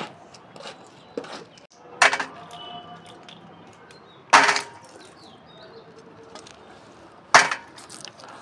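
Alexandrine parakeet giving three short, harsh squawks, a couple of seconds apart.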